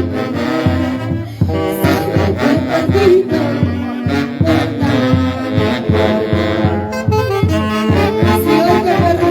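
Live band music led by saxophones playing a melody over a steady bass beat, with no vocals.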